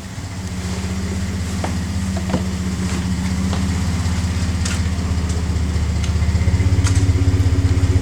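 Truck engine idling through a FloPro 4-inch aftermarket exhaust with a Twister and no exhaust tip: a steady, low, pulsing exhaust note. It grows louder over the first six or seven seconds, with a few light clicks over it.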